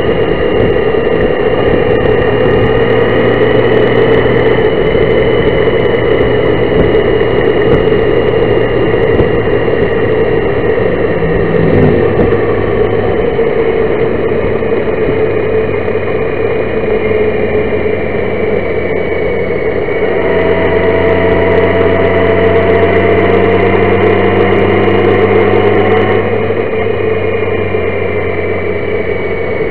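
Honda Gold Wing motorcycle riding along at road speed: a steady drone of engine and rushing air, the engine note shifting in pitch a few times, about 12, 20 and 26 seconds in.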